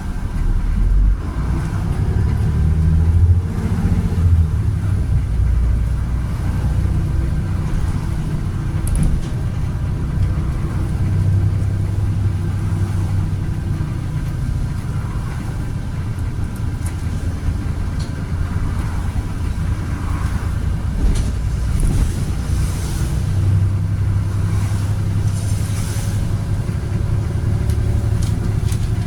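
Volvo B7RLE single-deck bus with a Voith automatic gearbox on the move: a steady low engine drone whose note swells and eases several times as it pulls away and runs, with light rattles over it.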